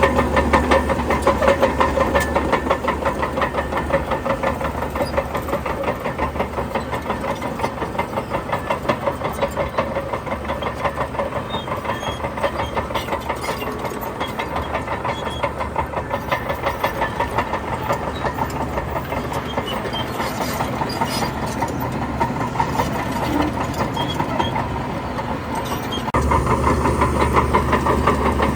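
Heavy diesel engine of earthmoving machinery running with a fast, even throb, easing off through the middle and building up again near the end.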